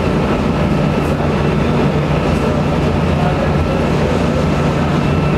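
Boat engine running steadily, heard on board: a loud low drone with a faint steady whine over it.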